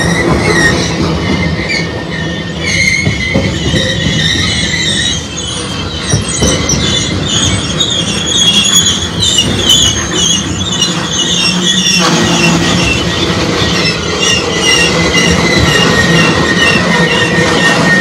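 Freight train tank cars rolling past at close range: a steady rumble of wheels on rail, with high-pitched, wavering wheel squeal throughout.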